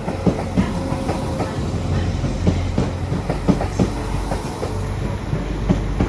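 Train running on the rails: a steady low rumble with the wheels clicking and knocking irregularly over rail joints.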